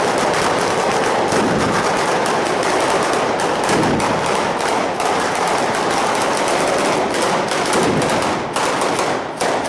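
A string of firecrackers going off on the ground in a rapid, continuous crackle of bangs that runs without a break and thins slightly near the end.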